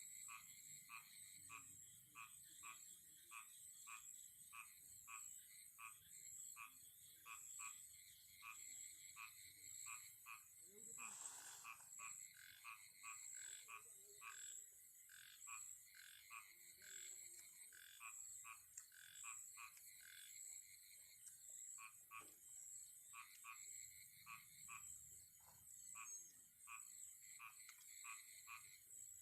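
Frogs calling at night: a faint, very regular run of short croaks, about two to three a second, over a steady high-pitched buzz, with a brief rustle about eleven seconds in.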